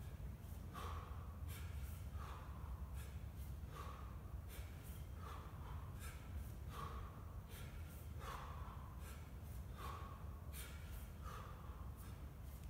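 A man's hard, rhythmic breathing through the nose and mouth, a short sharp breath about every 0.7 s, paced to the reps of one-arm kettlebell work, over a steady low hum.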